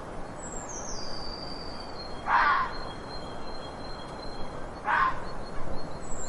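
Fox barking: two short, harsh, hoarse barks about two and a half seconds apart. A thin high falling whistle sounds in the background about half a second in.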